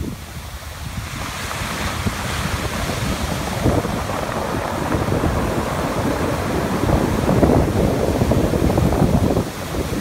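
Pacific Ocean surf breaking and washing up over a pebble beach in a continuous hiss of foam, swelling to its loudest about seven to nine seconds in, with wind buffeting the microphone.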